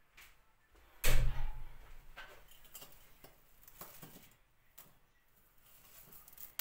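A loud thump about a second in, then irregular scraping and rustling as stove ash is rubbed by hand over a metal teapot to scour off the soot.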